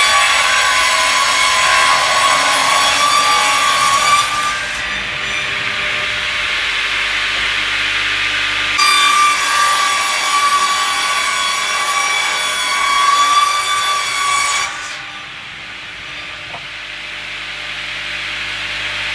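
Sawmill saw cutting through timber in two long passes. Each pass is a high whine over a rasping hiss. The first ends about four seconds in, the second runs from about nine to fifteen seconds, and the machine runs more quietly between and after them.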